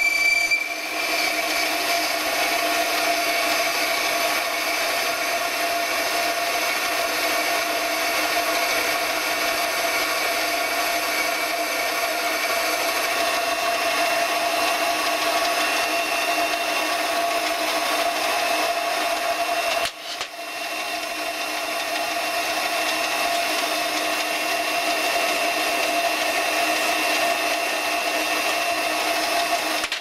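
Small metal lathe running with a steady whine while a boring bar cuts inside the bore of a hydraulic adapter held in the chuck. The sound drops out for a moment about two-thirds of the way in, then carries on.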